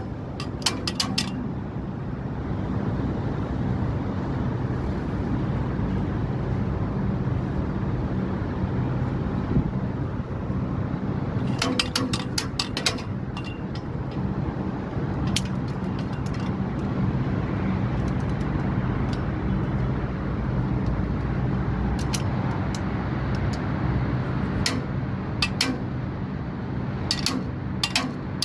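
Steady low hum of a running HVAC compressor unit, with sharp metallic clicks and taps at intervals, a quick cluster of them about twelve seconds in and several more near the end.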